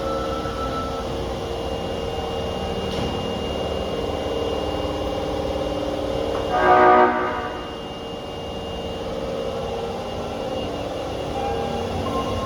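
Osaka Metro 22 series subway train running through the station, sounding one short blast of its horn about halfway through. The horn has an abnormal, off-sounding tone that has persisted even after the train's renewal.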